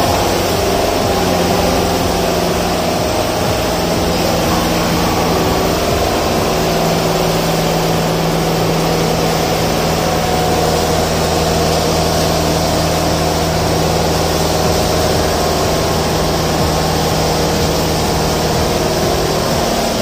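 Concrete mixer truck's diesel engine running steadily, a continuous low engine hum.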